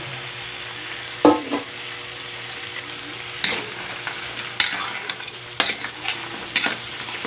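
Whole crabs sizzling in hot oil in a metal wok, with a steady frying hiss. About five sharp knocks and scrapes of a utensil against the pan, roughly one a second after the first second, as the crabs are stirred.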